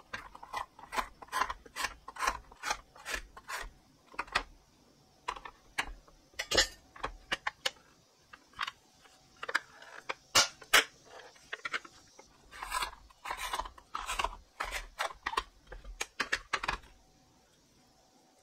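Burdock root pushed back and forth across a plastic mandoline slicer's blade. Each stroke gives a short rasping scrape, about two a second, in runs with short pauses, and the strokes stop shortly before the end.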